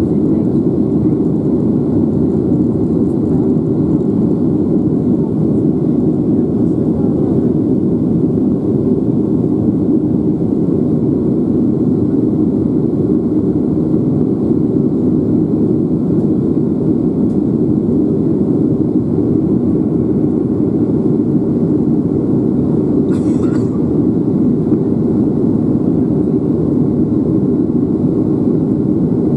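Steady low rumble inside the cabin of a Boeing 737-800 in flight shortly after takeoff: its CFM56-7B turbofan engines and the airflow over the fuselage. There is one faint click about two-thirds of the way through.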